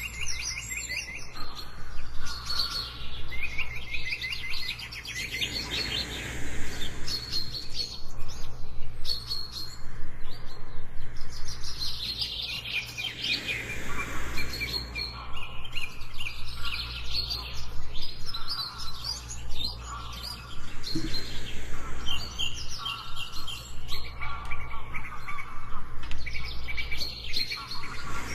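Jungle birds chirping and trilling, several calls overlapping in quick repeated series, over a steady low hum.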